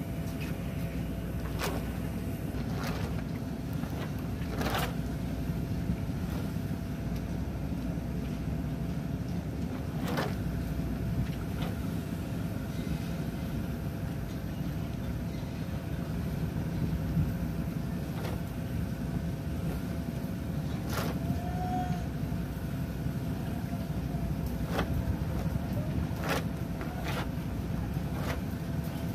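Steady low rumble of a marine engine with a thin steady hum over it, and sharp clicks now and then.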